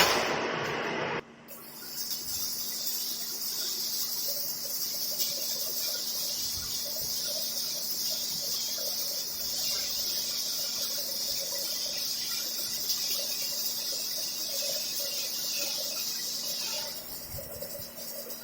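A loud rushing noise cuts off about a second in. Then an electric arc welder runs a bead with a steady high-pitched sizzle, which stops abruptly near the end as the arc is broken.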